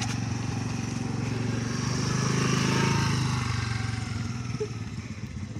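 Motor scooter engine running as it rides slowly past, growing louder about halfway through and then fading as it moves away.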